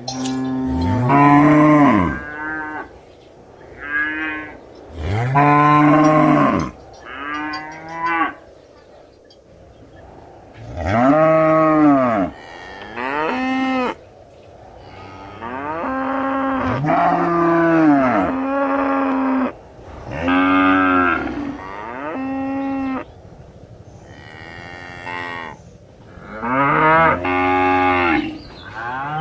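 Cows mooing: a series of a dozen or so separate moos, each lasting one to two seconds, the pitch rising and then falling within each call, some overlapping as different animals call.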